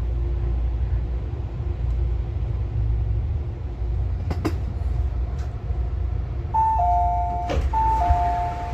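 MTR Airport Express train's low, steady rumble, with a sharp knock about four and a half seconds in. Near the end an electronic chime sounds twice, each time a high note followed by a lower one.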